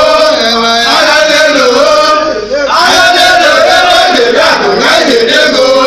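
A group of people chanting and singing together, loud, with a brief break about halfway through.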